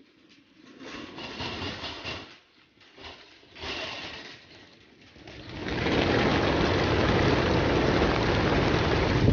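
Short bursts of rattling as the release doors on a pigeon transport truck's crates are raised, then a mass of racing pigeons taking off at once from about six seconds in, with a loud, continuous clatter of wings.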